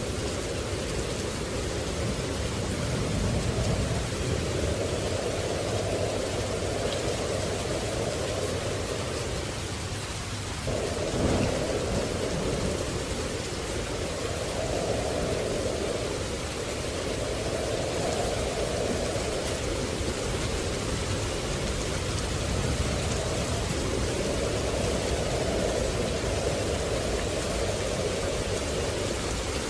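Steady rain, with a low rumble of thunder that swells and fades every few seconds and a sudden louder crack about eleven seconds in.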